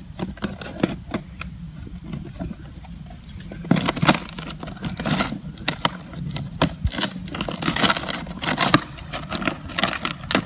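Cardboard shipping box being handled and opened by hand, the packing tape cut and the flaps pulled open. Scattered clicks and scrapes at first turn into dense rustling and scraping from about four seconds in, over a steady low rumble.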